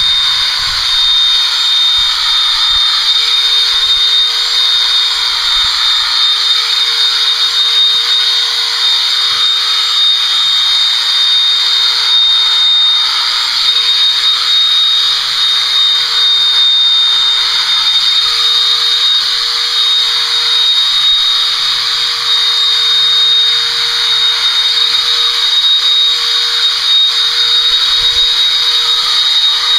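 Electric horse body clippers running steadily, with a high whine, as the blades cut through the horse's coat.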